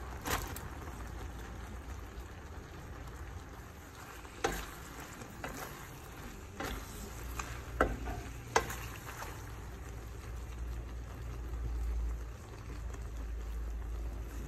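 Creamy sauce sizzling in a frying pan as fettuccine is tossed through it with a wooden spoon, with a handful of sharp knocks of the spoon against the pan.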